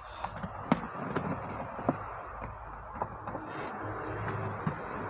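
A stiff clear plastic sheet being handled and shifted over car floor carpet, rustling steadily, with several sharp clicks about a second apart.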